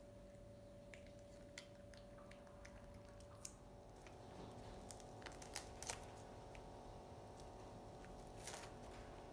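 Faint crunching and tearing as a baby monkey bites into green plant food, with scattered small clicks and a cluster of sharper ones about five to six seconds in, over a low steady hum.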